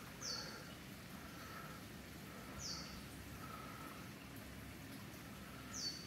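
Faint rainforest ambience with a bird repeating a short, high, falling call three times, about every two and a half to three seconds, and a few fainter lower notes between.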